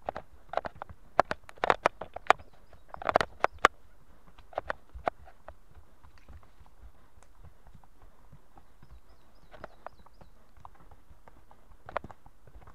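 Hooves of ponies walking uphill on a steep earth and stone forest trail: a quick, uneven run of clip-clop hoof strikes in the first five seconds, then only the odd footfall.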